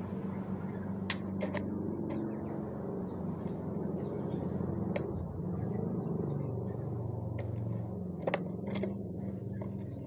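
Sharp clicks and taps of a white-rumped shama pecking at crickets in a plastic feeding tub, over a steady low hum. Short high chirps repeat about twice a second throughout.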